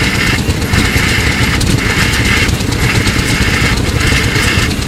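Houston, Stanwood & Gamble steam engine running steadily: a constant low mechanical rumble under a hiss that breaks off briefly about once a second, in time with its slow stroke.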